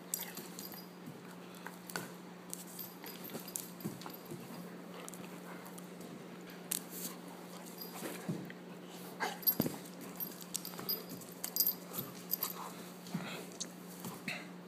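Weimaraner play-biting and mouthing a person's hand: scattered short dog noises, snaps and clicks of the jaws and scuffling, coming thicker and louder in the second half.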